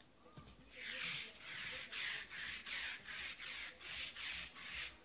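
Sticky lint roller rolled back and forth over a tablecloth: about ten quick, even rasping strokes, starting about a second in.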